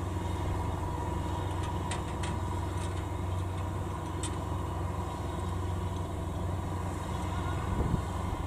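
Kubota DC93 combine harvester's diesel engine and machinery running steadily while harvesting rice: an even drone with a thin whine held above it and a few faint clicks.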